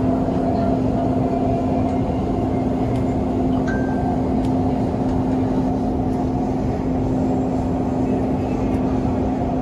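Dubai Metro train running, heard from inside the carriage: a steady rumble with a constant low hum.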